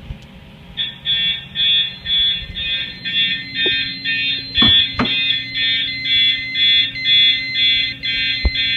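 Fire alarm horns sounding in march time, pulsing about twice a second, starting about a second in: the system has gone into alarm from a 135-degree heat detector. A few short knocks are heard in the middle and near the end.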